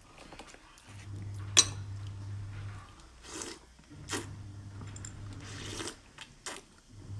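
Close-miked eating and drinking sounds: a low drone comes in three stretches of about two seconds with short breaks between them, and sharp clicks of tableware sound over it, the loudest about a second and a half in.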